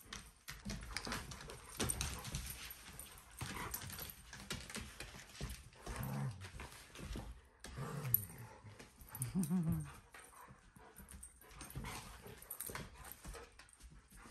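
Two dogs play-fighting on a hardwood floor: a run of low growls, most of them in the middle and the loudest about nine seconds in, over scuffling and knocking of paws and bodies on the wood.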